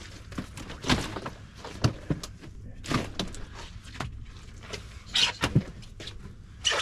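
Mullet being handled and dropped one at a time into a container as they are counted, a knock or thump with some flopping every second or so.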